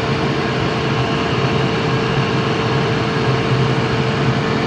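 Gas furnace running with its burners lit: a loud, steady noise with a constant hum.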